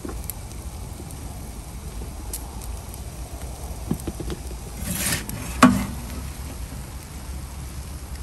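Steady low roar of the gas burner in an Ooni Karu 12 pizza oven. About five seconds in there is a brief scraping swell and then one sharp metal clack as a perforated metal pizza peel is slid under the cooked pizza to take it out.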